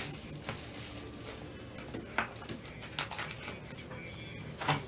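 Trading cards and clear plastic card holders handled by gloved hands on a table mat: quiet rustling with a few light clicks and taps, the loudest near the end.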